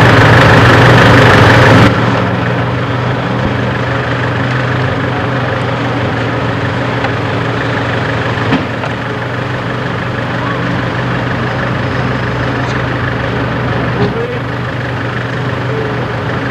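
A steady engine drone, louder and harsher for about the first two seconds, with a couple of short knocks.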